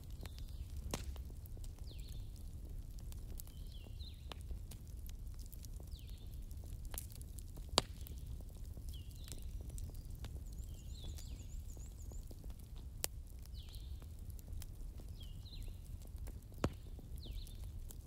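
Wood campfire crackling, with many small ticks and three louder pops. Under it runs a low steady rumble, and a bird gives short high chirps every second or so.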